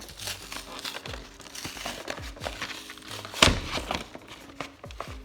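Packaging on a Pokémon trading card box being crinkled and torn open, in many quick crackles with one louder rip about three and a half seconds in. Soft background music plays underneath.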